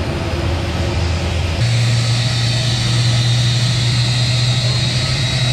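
Airliner engines running: a loud steady drone that changes abruptly about a second and a half in to a steadier low hum with a thin high whine on top.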